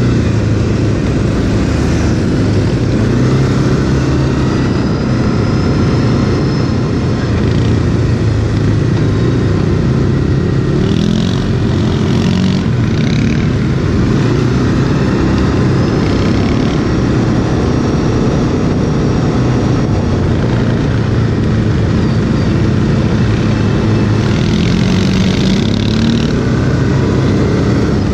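Quad (ATV) engine running hard off-road, its pitch rising and falling with the throttle. There are two short spells of added rushing noise, about eleven and twenty-five seconds in.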